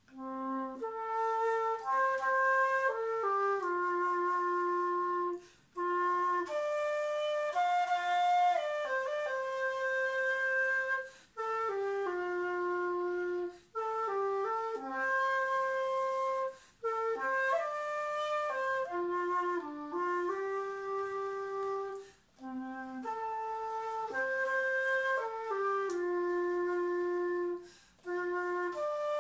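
Dongxiao, a long end-blown bamboo flute pitched in F, playing a slow melody of held notes, with six short breaks for breath.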